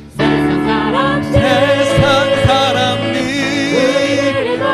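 Church praise team singing a Korean worship song with instrumental accompaniment. The music drops out for a moment right at the start, then comes back in.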